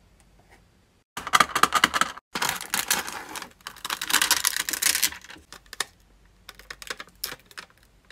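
Dense crackling and clicking of a clear double-sided nano tape roll and its plastic blister pack being handled, and the tape's sticky end picked at and peeled. It comes in two spells, about a second and about three seconds long, then a few scattered clicks near the end.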